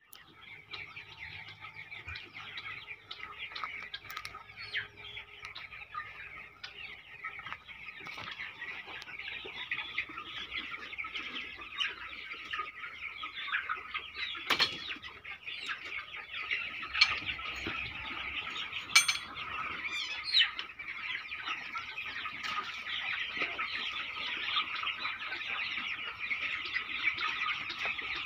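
A shed full of some 250 seven-week-old chickens peeping and cheeping in a dense, unbroken chorus that grows louder as it is neared. A few sharp knocks stand out about halfway through.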